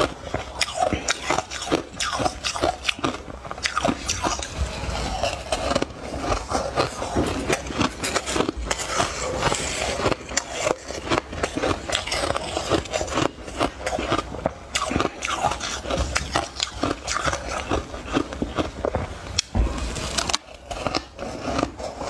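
Close-up crunching of soft, powdery ice being bitten and chewed: a dense run of rapid, crisp crunches with a few short pauses between mouthfuls.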